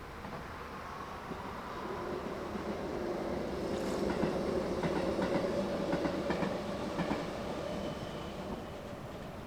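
A passing train, growing louder and then fading, with a quick run of wheel clicks over the rail joints at its loudest.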